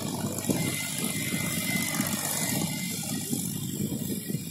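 Mahindra 275 DI TU tractor's three-cylinder diesel engine running steadily under full load in high gear while pulling a tiller through the soil, with a fast, even chug.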